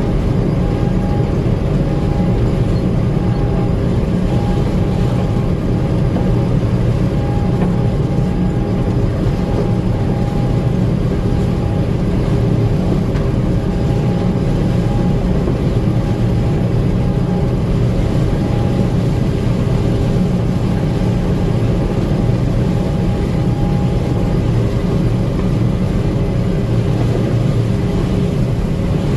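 Gleaner M2 combine running steadily under harvest load in corn, heard from on board: a constant low engine and threshing drone. A faint high whine comes and goes in short stretches until near the end.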